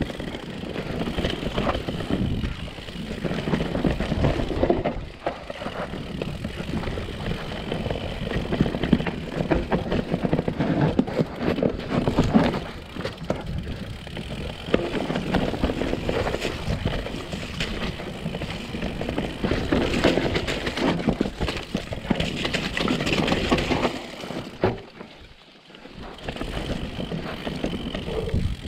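Mountain bike descending a dirt forest trail: a steady rumble of knobbly tyres on dirt, with the bike clattering and knocking over roots and bumps. Near the end the noise briefly drops away, then picks up again.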